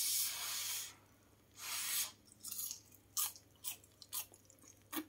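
A person eating hot, freshly fried home-made french fries: two longer hissing breaths in the first two seconds, then a run of short, crisp chewing crunches.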